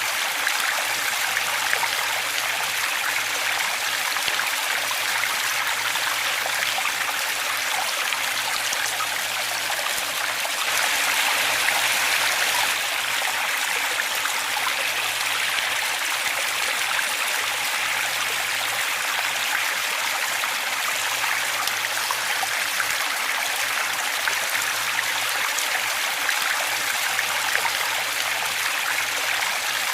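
Waterfall: steady rushing, splashing water with no pauses, swelling slightly about eleven seconds in.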